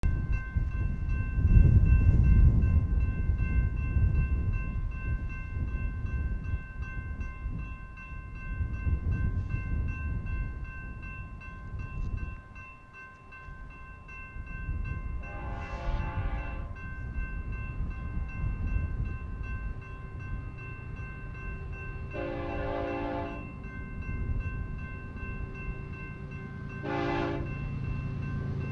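BNSF diesel freight locomotive rumbling, then its air horn sounding two long blasts and one short, the start of the long-long-short-long grade-crossing signal. A steady ringing tone runs underneath throughout.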